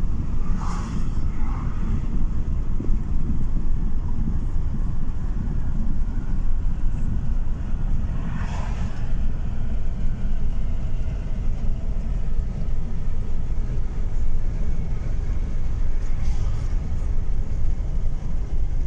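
Car cabin noise at cruising speed: a steady low rumble of tyres on the road and the running engine. Three brief whooshes come through, about a second in, near the middle and late on.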